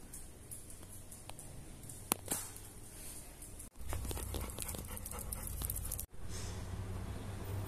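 Dog panting, with a few light clicks in the first half as a dog walks across a tiled floor. A steady low rumble sets in about four seconds in.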